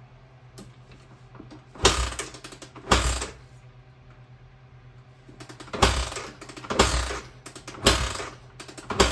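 Honda ATC 250SX four-stroke single being kick-started: six kicks, two and then four with a pause between, each turning the engine over briefly without it catching. It is being cranked with the choke off after a carburettor cleaning.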